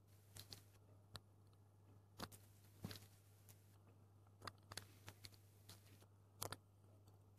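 Near silence: a faint steady low hum with about nine faint, irregular clicks scattered through it.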